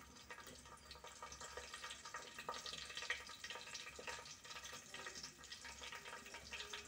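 Whole spices (bay leaves and cinnamon) sizzling faintly in hot oil in an aluminium pressure cooker, with scattered small crackles.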